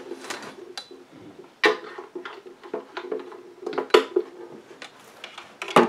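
Handling noise from a plastic signal-booster unit being moved and its power cable plugged in: a few sharp knocks and clicks over a faint steady hum. The loudest knocks come about a second and a half in, near four seconds, and just before the end.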